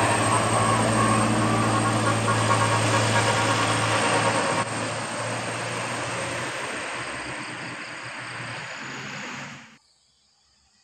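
Bus running close by: a steady low engine hum under a broad rushing noise. It drops in level about four and a half seconds in, fades, and cuts off abruptly near the end.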